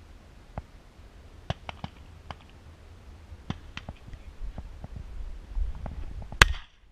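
Dry field cover crackling and snapping as someone walks through it, with scattered sharp clicks over a low rumble of wind on the microphone. One loud sharp knock comes a little before the end.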